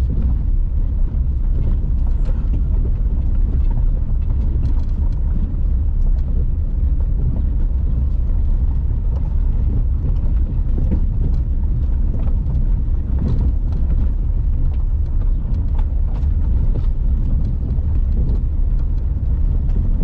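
Tata Nexon SUV driving over a rough dirt jungle track, heard from inside the cabin: a steady low rumble of engine and tyres on gravel, with many small knocks and rattles from the uneven surface.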